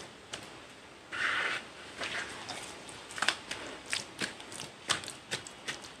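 Hands squeezing and kneading wet white cement paste in a bowl. A short hissing squelch comes about a second in, then a run of sharp wet clicks and squelches, several a second.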